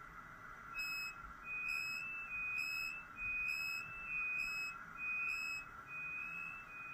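The ESU LokSound 5 Micro sound decoder in a Märklin Z-scale ICE 3 (BR 406) model, playing a string of short high beeps through its tiny speaker, roughly one a second, starting about a second in.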